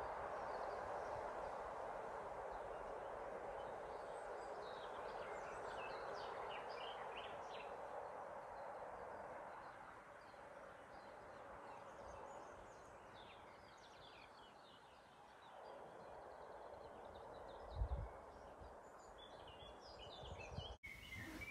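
Small birds chirping over a steady rumble that fades away over the first half, typical of a train moving off into the distance. A brief low thump comes near the end.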